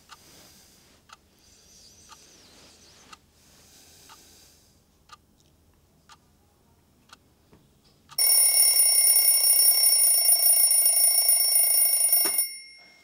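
Wind-up twin-bell alarm clock ticking faintly about once a second, then ringing loudly for about four seconds before the ring cuts off with a knock.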